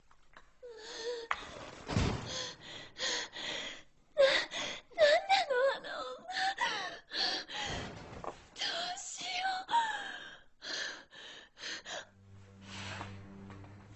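A person gasping in panicked breaths and whimpering, with short wavering cries in between. A low steady hum comes in near the end.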